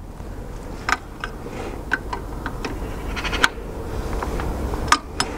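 Combination spanner tightening a bolt on the engine: a string of light metallic clicks at irregular spacing as the spanner is turned and refitted on the bolt, over a steady low rumble.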